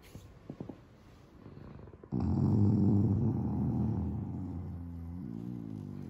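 A man snoring loudly: one long rattling snore starts suddenly about two seconds in and turns into a wavering, pitched drone near the end.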